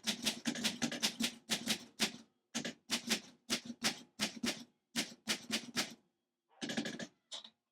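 Facit typewriter being typed on: a quick run of sharp key strikes, about four a second, with a short pause about six seconds in before a few more strikes.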